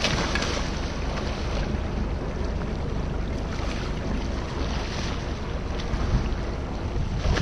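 Wind buffeting the microphone over a low, steady boat rumble, with splashing from a hooked mahi-mahi thrashing at the surface beside the hull.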